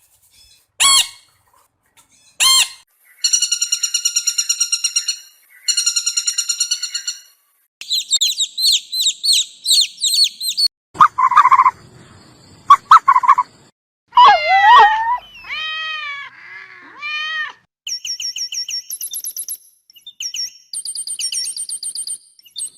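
A string of different bird calls, one after another with short silences between them. They include rapid chirping trills, high repeated whistles and gliding squeaky notes.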